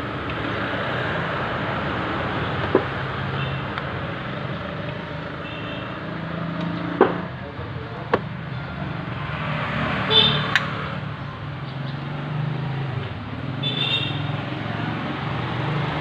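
Steady road traffic and background noise with a low hum, broken by a few sharp single metallic clicks from hand tools working on an engine's exposed timing chain and sprockets. Short horn-like toots and faint voices come and go.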